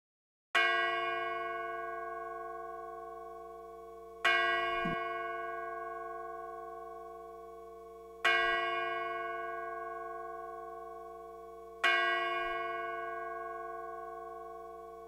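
A large bell tolling four times, a stroke about every four seconds, each one ringing out and fading slowly.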